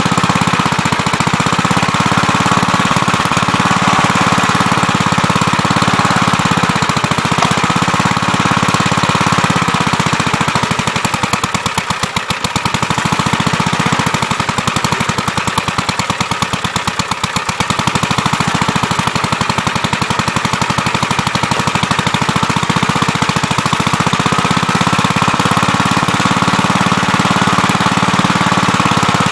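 Gravely Terramite backhoe's engine running continuously at working speed while digging. Its level and pitch sag for several seconds around the middle, then pick back up.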